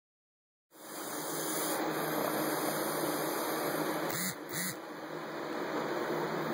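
Western hognose snake hissing: a steady hiss that starts just under a second in and breaks off briefly twice about four seconds in.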